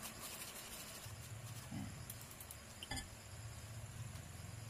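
Quiet scraping of a utensil working chocolate puto batter through a stainless-steel mesh sieve, with one sharp clink of metal on the sieve about three seconds in. A low steady hum runs under it from about a second in.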